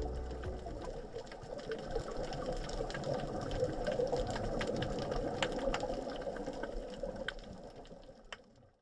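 Underwater sound picked up by a diving camera: a steady murmur with scattered sharp clicks, fading and then cutting off near the end.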